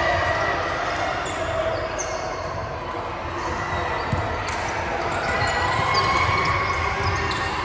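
Basketball dribbled on a gym floor, a few short knocks over a steady din of voices and noise in the hall.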